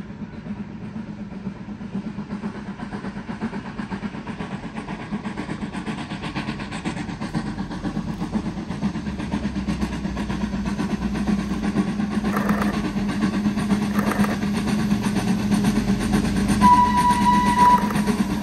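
Steam locomotive approaching, its running sound growing steadily louder, with a whistle blast of about a second near the end.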